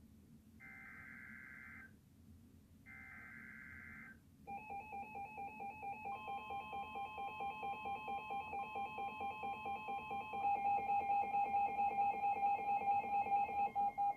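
Emergency Alert System tones for a severe thunderstorm warning: the last two of three digital SAME header bursts, each about a second of buzzy electronic screeching. Then comes a rapidly pulsing alarm beep with a steady tone beneath it, which gets louder about ten seconds in.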